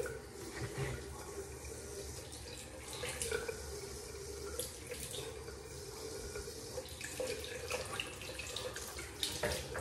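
Water running steadily from a tap into a sink, with a few light knocks and clicks.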